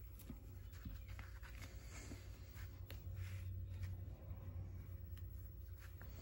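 Faint rustling and scraping of woven jute twine being folded and smoothed by hand on leather, with scattered soft clicks over a low steady hum.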